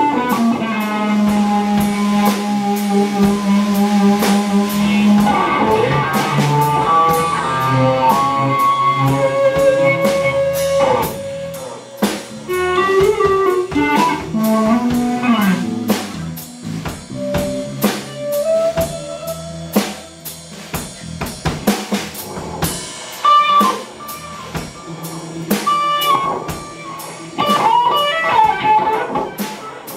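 Fuzz-driven electric guitar, a Stratocaster through a Uni-Vibe and Marshall amp, holds one long sustained note for about five seconds, then plays lead phrases. A drum kit plays along with sharp snare and cymbal hits.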